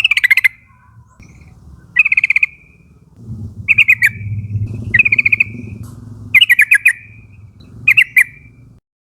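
Yellow-vented bulbul (trucukan) giving about six short, bubbling chattering phrases of rapid notes, one every second or so, over a low background rumble. The sound cuts off suddenly just before the end.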